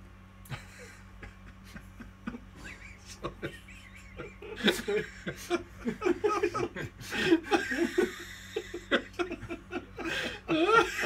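People laughing, starting with a few snickers and breaking into loud, continuous laughter about four and a half seconds in.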